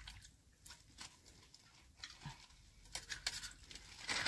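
Faint, scattered clicks and light taps of cooking utensils, a few per second, as turmeric and other spices are added to the curry.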